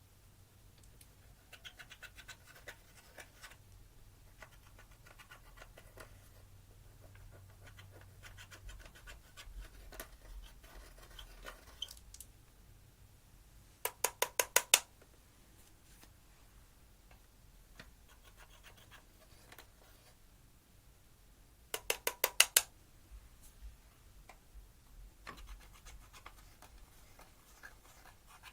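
Hands working slime: soft crackling and squishing, with two quick runs of sharp popping clicks, one about halfway through and another about eight seconds later.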